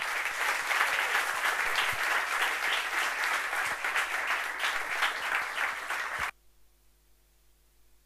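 Audience applauding: a dense patter of many hands clapping that stops abruptly about six seconds in, leaving only a faint steady room hum.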